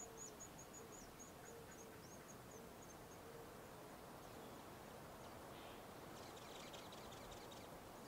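Near silence: faint outdoor ambience, with a faint run of short, high, thin chirps that slows and stops about three seconds in.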